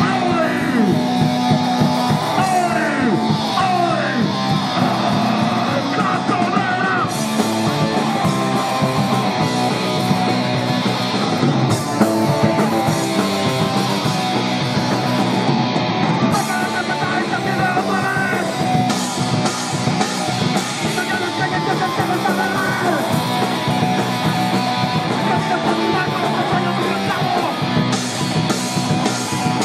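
Live punk band playing loud: electric guitars, bass and drum kit, with shouted vocals over them.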